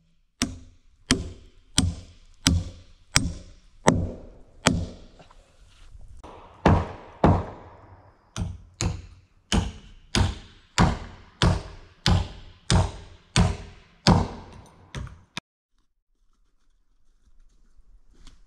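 Repeated heavy blows of a tool on timber during log-building work, evenly spaced at about one and a half a second, each with a short ringing tail. They ease briefly around six seconds in, then go on until they stop abruptly in the last few seconds.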